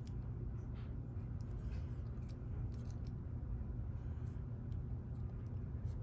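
Faint light metallic clicks and scrapes of a small tool working at a lock cylinder, trying to slide a shim in, over a steady low hum.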